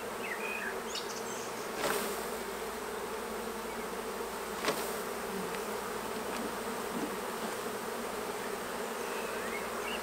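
A honeybee colony buzzing steadily as it is shaken out of a nuc box into a full-size hive, with two brief knocks, about two seconds and five seconds in.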